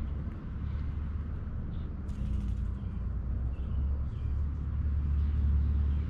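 Steady low outdoor rumble, swelling slightly toward the end, with a few faint, short bird chirps over it.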